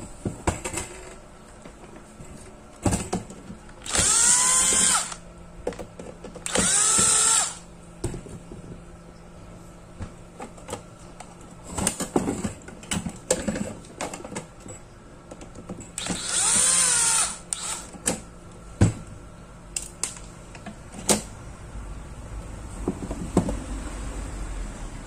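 Electric screwdriver running in three short bursts of about a second each, backing screws out of the ion blower's sheet-metal case, its motor pitch bending up and down with each run. Between the runs come sharp clicks and knocks of the metal case and panels being handled.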